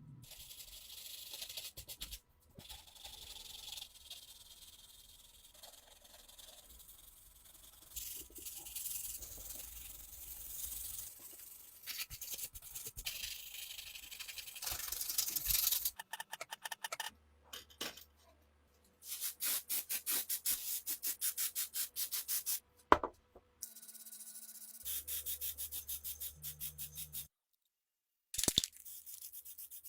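A string of short hand-work sounds on metal, cut one after another: a long stretch of high, hissing rubbing, then runs of fast, even strokes or clicks, with abrupt cuts and brief silences between.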